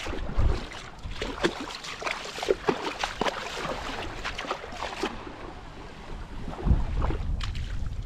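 Wind buffeting the microphone in gusts, strongest about two-thirds of the way through, over small wavelets lapping and splashing at the sandy shoreline.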